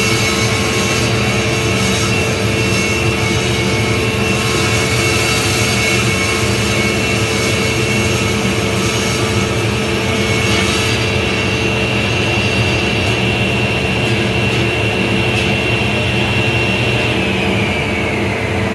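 SawStop cabinet table saw running loud and steady while ripping a long board lengthwise. Over the last couple of seconds its whine falls in pitch as the blade spins down after being switched off.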